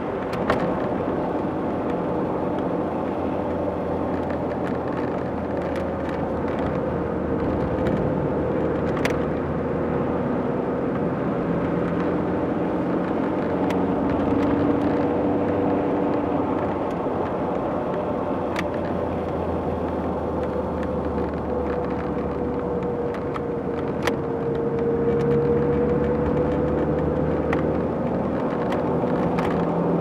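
Inside a moving car's cabin: steady engine hum with road and tyre noise. The engine note drifts slowly up and down, with a few faint ticks along the way.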